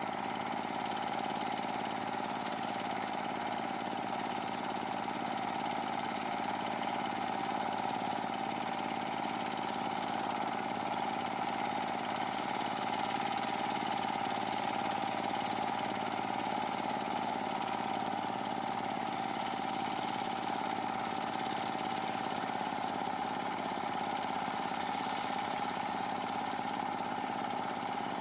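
Chinese D30 diesel engine of a cage-wheeled water-channel cutting machine running steadily as it cuts a channel through the paddy.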